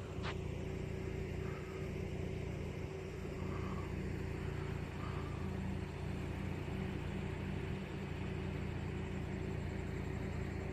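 A car running with a steady low engine and road rumble.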